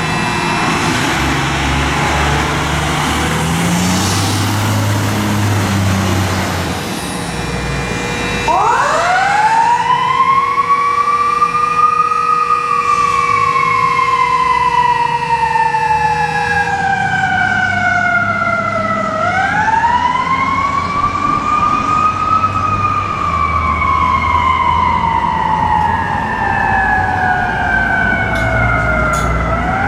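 Fire truck's engine running, then its siren comes on about eight seconds in: a wail that climbs quickly and falls away slowly, winding up again about every ten seconds.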